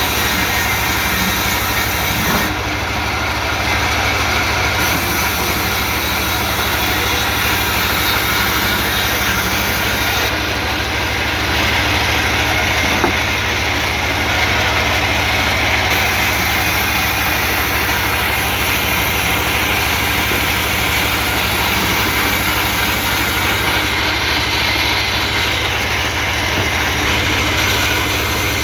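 Engine of a portable band sawmill running steadily at constant speed.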